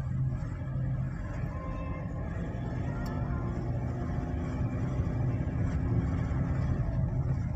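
Steady engine and tyre rumble of a car driving, heard from inside the cabin.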